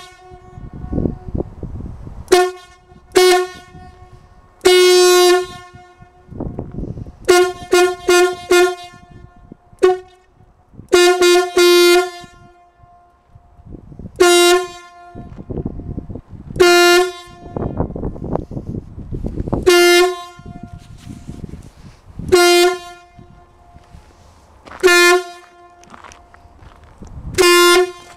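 A single-pitched horn blown in a long series of blasts, some in quick runs of four or five toots and others single, one held about a second, in imitation of a diesel locomotive horn. A low rumble fills the gaps between blasts.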